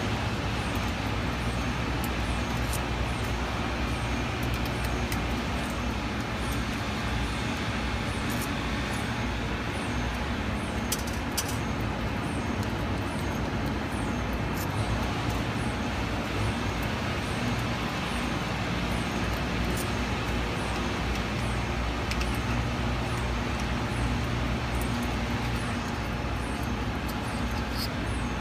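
Steady machinery hum with a rushing background noise, as from the lab equipment running around the sputter coater, with a few faint light clicks as the cathode's retainer screws are worked loose.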